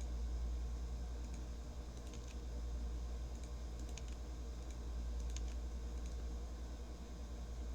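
Faint, scattered clicks over a low, steady hum.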